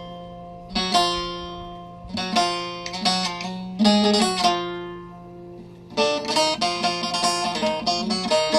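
Instrumental interlude on a plucked string instrument: chords struck and left to ring over a steady low drone, a few strokes at a time at first, then quicker, denser strumming from about six seconds in.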